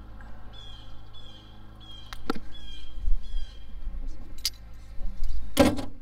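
A bird calls one short, slightly falling note over and over, about every two-thirds of a second, for the first few seconds. A couple of sharp clicks follow, then a heavy knock near the end, the loudest sound.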